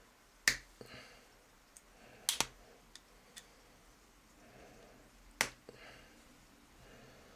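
Sharp metallic clicks from a small flat screwdriver prying at the pressed-steel casing of a microwave turntable motor: one about half a second in, a quick double click a couple of seconds in, and another a little after halfway, with fainter ticks and light scraping between.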